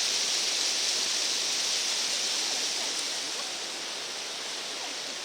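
Steady rush of water from a waterfall on the Siffleur River, growing a little fainter in the second half.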